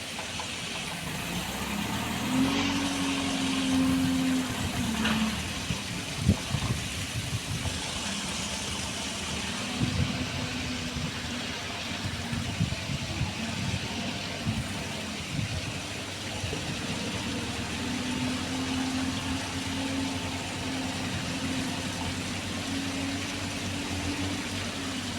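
JCB backhoe loader's diesel engine running, its note rising and holding under load twice, with scattered knocks as the bucket works rock.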